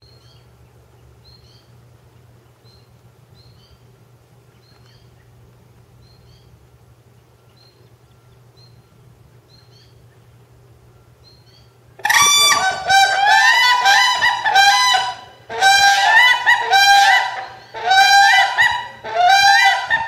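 Whooping crane calling: after about twelve seconds of only faint high chirps, loud, ringing, honk-like bugling calls start suddenly and come in four bouts, with the bird's head and bill pointed skyward.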